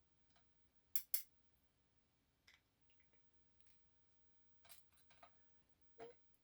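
Small metal clicks and ticks from the tiny parts of a dimple lock being handled as its pins are taken out: two sharp clicks about a second in, then a few fainter ticks.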